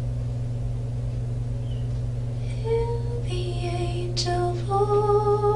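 A woman singing a slow tune in long held notes, starting about two and a half seconds in, over a steady low electrical hum.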